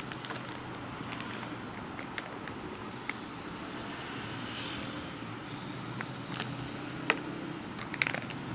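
Plastic snack packets crinkling and crackling as they are handled and set down on a table, with scattered sharp clicks, the loudest about seven and eight seconds in, over a steady background hum.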